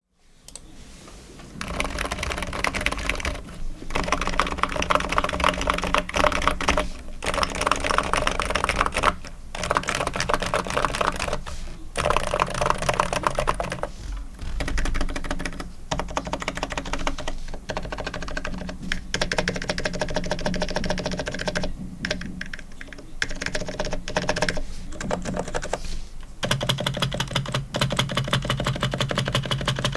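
ABKO KN10BT Bluetooth electro-capacitive (non-contact) keyboard being typed on fast in runs of keystrokes with short pauses between them. The switches, springs and stabilizers are still stock and unlubricated.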